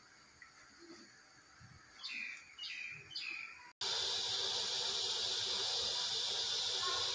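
Three short falling bird chirps. Then, starting suddenly, a steady sizzling hiss of cooking oil heating in a wok, the loudest sound here.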